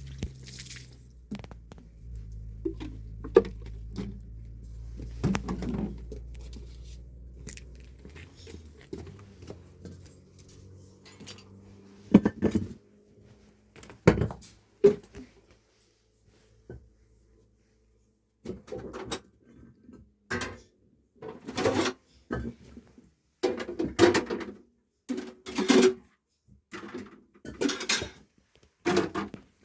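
A low steady hum for the first several seconds, then a run of short clattering knocks, about one a second, near the end, like pots and dishes being handled.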